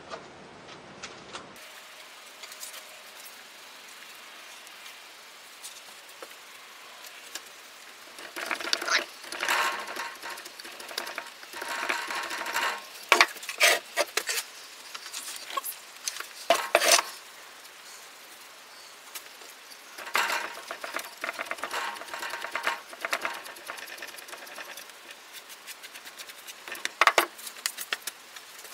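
Molding sand being scooped and dropped into a wooden casting flask over a pattern: irregular bouts of rustling and scraping, beginning about eight seconds in.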